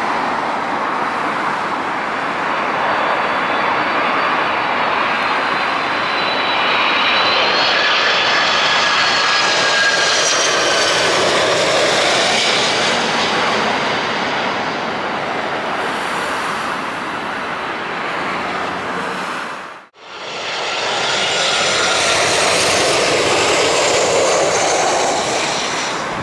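Twin turbofan engines of a Boeing 767-400ER on final approach, a loud steady roar with whining tones that fall in pitch as the airliner passes close by. About twenty seconds in the sound cuts out for a moment, then a similar jet roar returns.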